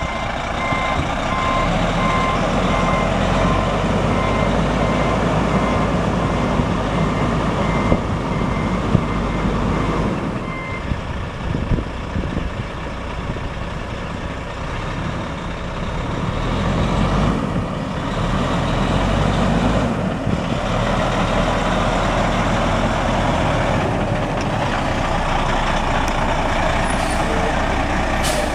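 Caterpillar C13 diesel engine of a 2007 Kenworth T800 semi tractor running as the truck reverses, its backup alarm beeping evenly for about the first ten seconds. After that the engine runs on alone as the truck drives, growing louder in the second half.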